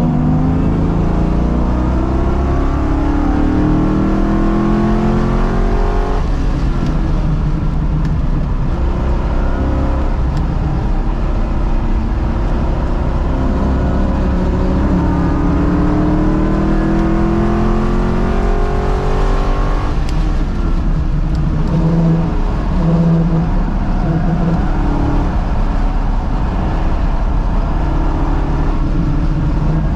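1989 Ford Mustang's 5.0 V8 engine running hard on track, heard from inside the car: its pitch climbs as it revs up, drops sharply about six seconds in and again near twenty seconds, then climbs again.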